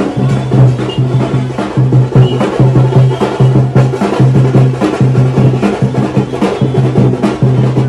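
Loud, fast drumming with a steady repeating beat: a deep drum pulsing about twice a second under quick, sharp strokes.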